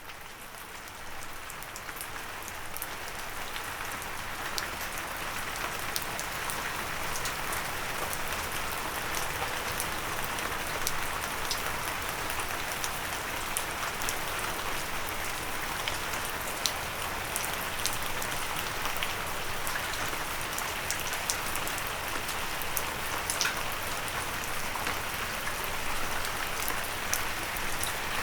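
Steady rain with many separate drops ticking sharply on a windowsill, swelling up over the first few seconds and then holding even.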